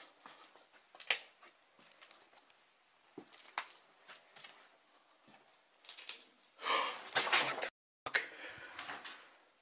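Faint scattered taps and scuffs of footsteps on grit and debris in a tiled, echoing room, then a louder noisy scuffle about seven seconds in that breaks off for a moment and trails away as a quieter rustle.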